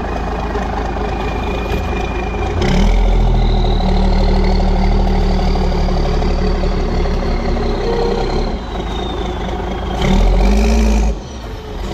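Hay squeeze engine running, then revving up about two and a half seconds in as the bale clamp works the stack of hay onto the trailer, with a high whine that rises and falls. It revs again near the end and then drops back.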